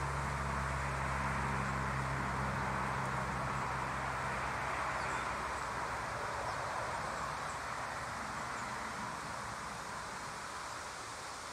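Outdoor ambience: a steady rushing hiss, with a low engine hum from a distant vehicle that fades out about halfway through, and a few faint high chirps.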